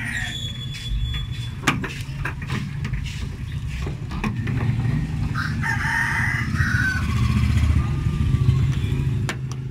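A rooster crowing in the background about six seconds in, over a steady low rumble. A few sharp clicks come as the plastic tailgate handle assembly is handled and pressed into place on the tailgate.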